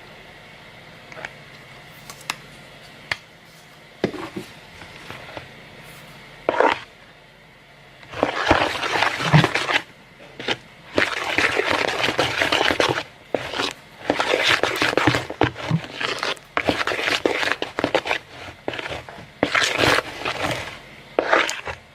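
Stirring a thick mix of glue, shaving cream and purple colouring in a bowl: a few light clicks, then from about eight seconds in a run of irregular scraping, squishing strokes against the bowl.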